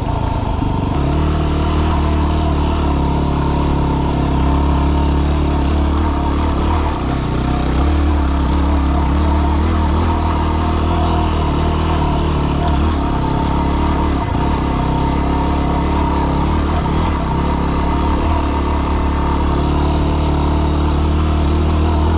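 Yamaha WR250R dual-sport motorcycle's 250 cc single-cylinder four-stroke engine running steadily while the bike is ridden over a rocky trail.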